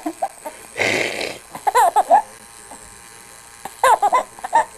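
A pager's vibrating buzz for about half a second, about a second in, then a baby laughing and squealing in two short bursts of high, bending cries.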